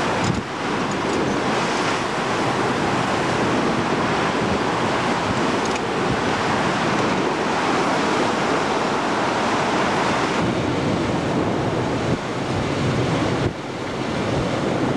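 Steady rush of wind on the microphone and sea water churning past the hull of a surfaced submarine running on the surface, with a couple of brief drops in level near the end.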